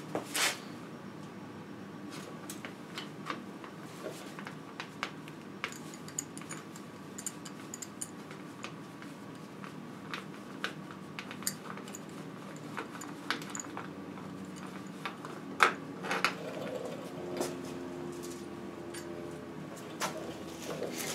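Square-taper bottom bracket being unscrewed from a bicycle frame with a bottom bracket remover and wrench: scattered light metallic clicks and taps of the tool, one a little louder partway through.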